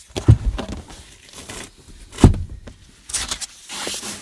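A sleeping bag being pulled out and handled: two dull thumps, about a third of a second and two seconds in, then fabric rustling near the end.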